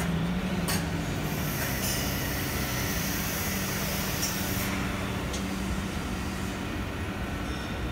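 Steady hum of factory machinery: a low drone with a tone that slides slightly lower over the first few seconds, a high hiss for about three seconds near the middle, and a few faint clicks.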